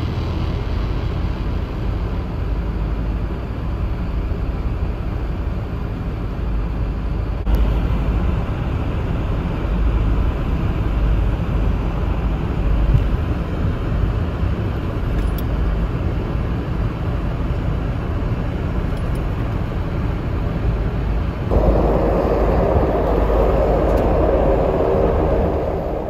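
Several Sikorsky UH-60 Black Hawk helicopters flying past, a steady rumble of rotors and turbine engines. A little past twenty seconds in, the sound abruptly becomes louder and brighter.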